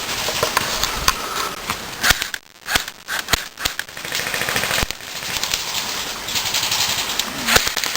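Airsoft guns firing rapid bursts of dense, quick clicks, with a few sharper single shots mixed in; the firing drops off briefly about two and a half seconds in.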